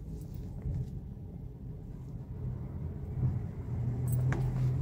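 Lift car travelling between floors: a low steady hum, growing a little stronger after about three seconds, with a light click near the end.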